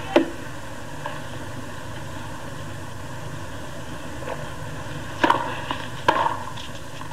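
Tennis ball struck by rackets twice, about a second apart, near the end as a point starts. A single sharp knock comes just after the start, over the steady low hum and hiss of the old broadcast recording.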